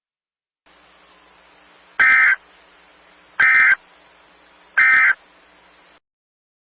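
Emergency Alert System end-of-message signal: three short, identical bursts of the SAME digital data squawk, about a second and a half apart, over a faint hiss and hum, closing the alert.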